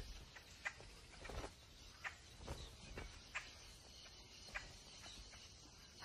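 Faint, scattered taps and rustles, a few short sharp ones each second over a low hiss, from vultures pecking and tugging at the tough hide of a carcass.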